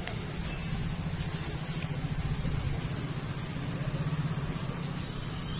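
An engine running steadily at idle with a low, rapid pulse.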